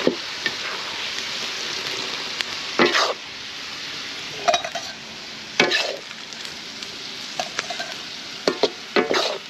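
Vermicelli and dry fruits frying in ghee, a steady sizzle, while a spatula stirs and scrapes the pan in about seven short strokes spread through.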